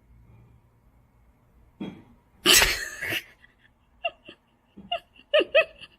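A single harsh cough about two and a half seconds in, followed by a few short high-pitched sounds near the end.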